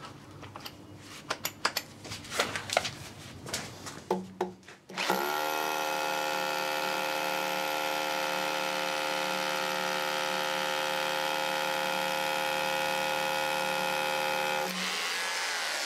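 Scattered clicks and knocks, then about five seconds in a Metabo KHE 2443 800-watt SDS rotary hammer drill starts and runs steadily with a high whine, drilling a 20 mm bit into concrete. Near the end it is switched off and winds down.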